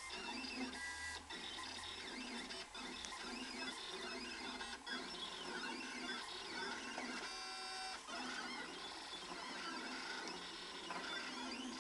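Secabo C60IV cutting plotter running, its stepper motors whining in tones that glide up and down as the tool carriage and the sheet move, with a few brief pauses.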